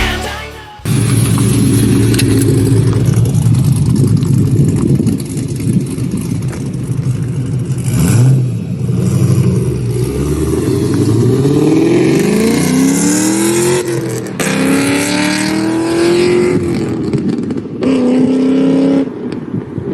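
Holden VF SS Commodore's LS3 V8 accelerating hard, its pitch climbing through the revs and dropping at gear changes, twice in the second half.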